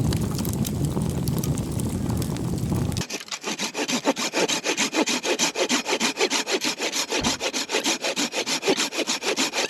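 A hand saw cutting through wood with fast, even back-and-forth strokes, several a second, starting about three seconds in. Before that, a steady low rumble that cuts off abruptly.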